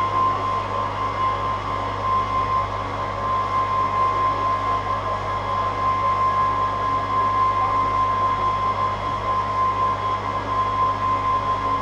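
Steady machine drone with a constant high whine and a low hum, unchanging throughout.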